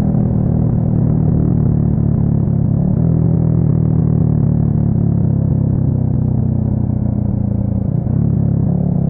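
Yamaha XSR 155's single-cylinder engine running through an aftermarket full exhaust system, cruising at steady revs. The pitch shifts slightly about three seconds in and dips briefly near the end.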